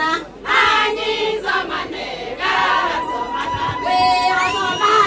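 A group of women singing together without instruments, their voices shifting in pitch, with long held notes in the middle and a high tone that slides up and holds near the end.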